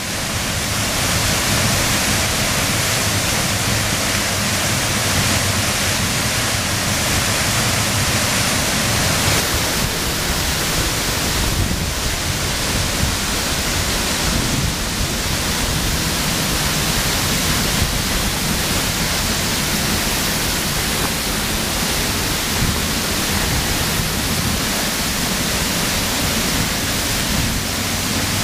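Falling Springs Falls, a tall free-falling waterfall, pouring onto the rocks below: a loud, steady rush of falling water and spray, heard from close below and behind the falls. It fades in over the first second.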